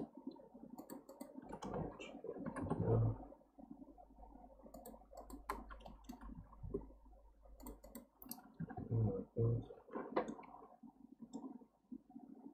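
Computer mouse clicks and scroll-wheel ticks, scattered and irregular, with a few dull low thumps about 3 s in and twice around 9 s.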